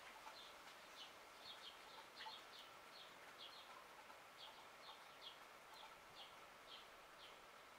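Faint, short bird chirps repeated irregularly, about two a second, over a quiet outdoor hiss.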